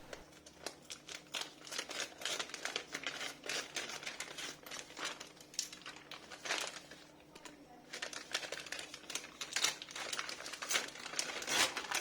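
Packaging crinkling and rustling as a new motorcycle clutch cable is unwrapped by hand: irregular crackles that pause briefly about two-thirds of the way through.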